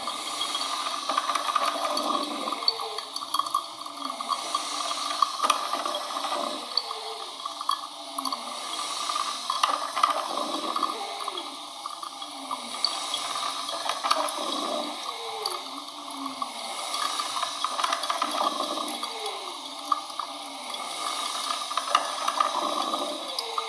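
Coffee machine running, a watery gurgling and hissing that swells and eases about every two seconds.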